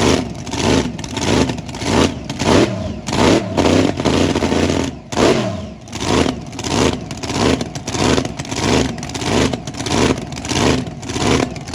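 A loud performance engine being revved over and over in quick throttle blips, about three every two seconds, its pitch rising and falling with each blip.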